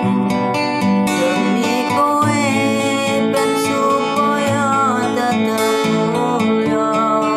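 Music led by acoustic guitar, strummed and picked at a steady pace.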